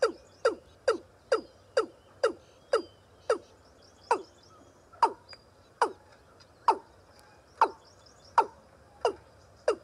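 A rail (gà nước) calling over and over: short, sharp notes that each slide steeply down in pitch, about two a second at first, slowing to about one a second midway and quickening again near the end. Faint higher twittering behind.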